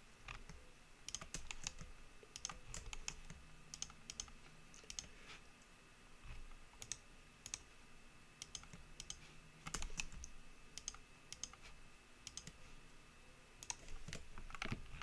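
Faint, irregular clicking of a computer keyboard and mouse, a few clicks at a time with short pauses, over a faint steady hum.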